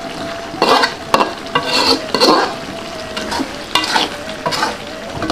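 Metal spatula stirring and scraping chicken in a thick green chili sauce around a wok, in irregular strokes, over a steady sizzle of the simmering sauce.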